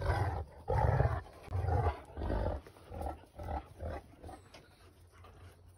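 Adult Central Asian shepherd dog growling at puppies in a run of about seven short, deep growls that fade out over about four seconds. It is a warning to the puppies crowding it, not an attack.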